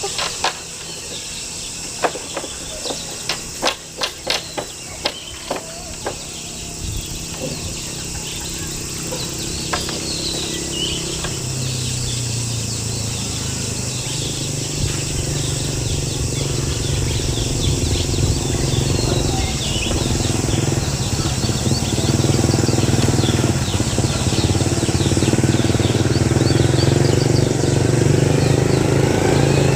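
A run of sharp knocks in the first few seconds, then an engine starts running about eleven seconds in and grows steadily louder, over a steady high buzz and a few bird chirps.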